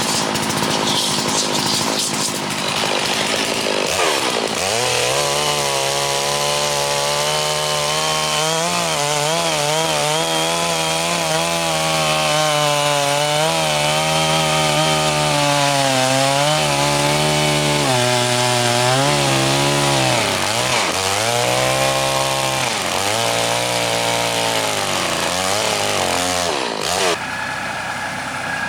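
Small gas engine of a Woodland Mills HM126 bandsaw mill running while the band blade cuts through a cottonwood log. The engine tone wavers and sags again and again under the load of the cut, and falls away near the end.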